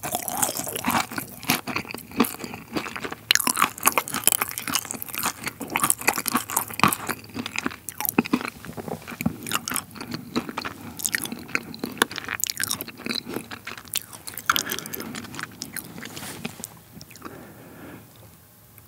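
Close-miked chewing of a crunchy dessert, with many small sharp crackles. The crackles thin out into quieter chewing over the last few seconds.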